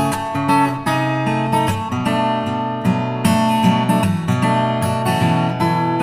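Background music led by acoustic guitar, with a steady run of plucked and strummed notes.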